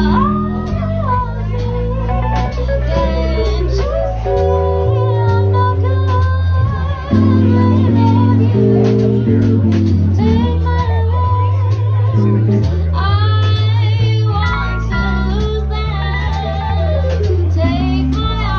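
Live band: a young woman singing a ballad melody into a microphone over a Nord Stage 3 keyboard playing bass and chords and a drum kit keeping time on the cymbals.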